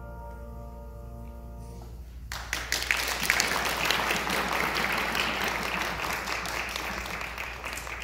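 A grand piano's last chord rings and fades out, then an audience breaks into applause about two seconds in and keeps clapping.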